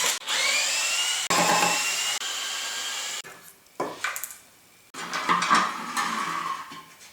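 Planer cutter head spindle spinning on its new bearings with a whir that falls in pitch as it slows, spun twice with a short knock between. The bearings run quietly.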